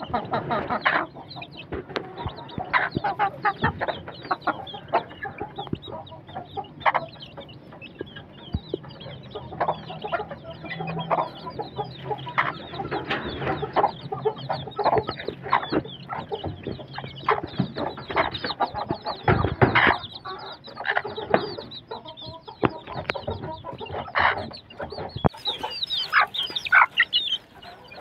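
Chickens calling: a hen clucking among chicks peeping, many short calls in quick succession.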